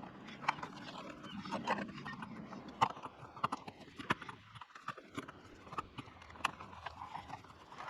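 Scattered light metallic clicks and taps, irregularly spaced, of a small screwdriver working the ground screw loose on an old porch light mounting plate.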